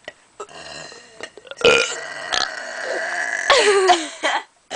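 A long, loud burp that starts about a second and a half in, lasts over two seconds and drops in pitch near the end. It is a deliberate burp forced by sucking in air.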